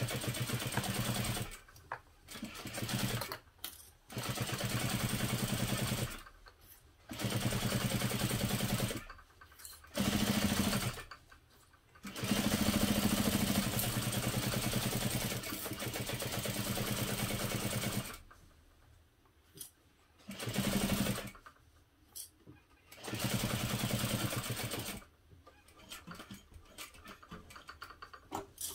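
Industrial sewing machine stitching through a fabric-covered webbing strap in short stop-start runs, about eight in all, the longest about six seconds, with brief pauses between them as the strap is turned and fed. Near the end the machine stops and only faint handling sounds remain.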